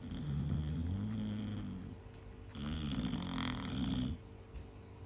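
A sleeping Chow Chow dog snoring loudly: two long rasping snores, the second starting about half a second after the first ends.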